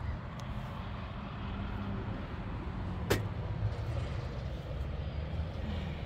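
Wind buffeting the microphone in a steady low rumble, with one sharp click about three seconds in.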